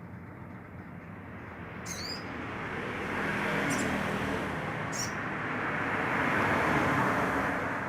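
A road vehicle passes, its noise swelling and then fading, while a small bird gives a few short, high chirps about two seconds and five seconds in.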